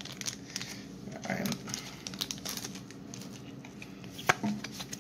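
Foil wrapper of a Pokémon card booster pack crinkling as it is opened and the cards are slid out, with scattered sharp crackles and one louder snap about four seconds in.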